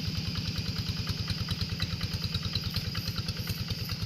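Kubota single-cylinder diesel engine on a two-wheel hand tractor running steadily, with a rapid, even chugging beat.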